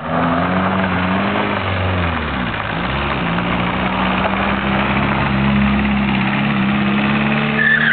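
Volkswagen Golf's engine revving hard and held high, dipping briefly about two and a half seconds in before rising and holding again, over a steady hiss of tyres spinning on loose gravel.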